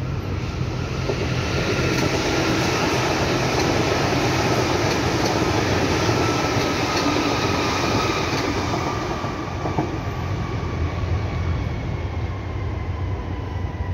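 Berlin U-Bahn small-profile train on the U2 passing by: wheels rumbling on the rails with a faint high whine. It is loudest in the middle, then eases off a little as the train moves away.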